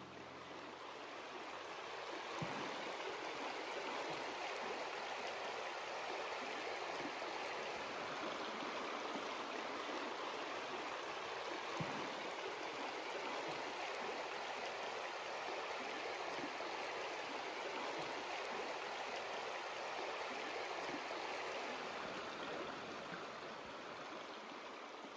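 Shallow river flowing over a cobble bed, a steady rushing babble of water that fades in over the first couple of seconds and fades out near the end.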